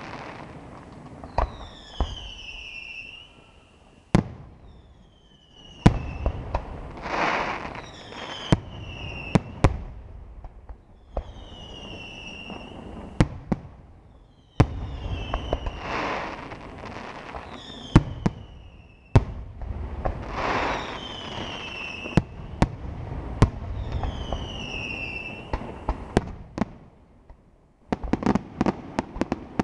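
Aerial firework shells bursting: sharp bangs every second or two, with falling whistles and whooshing swells between them. A rapid run of crackling starts near the end.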